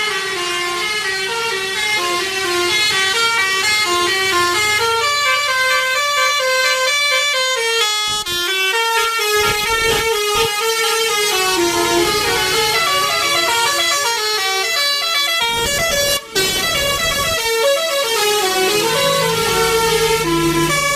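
A bus's 'telolet' multi-tone horn playing a fast melody of stepping notes, with a brief break about three-quarters of the way through.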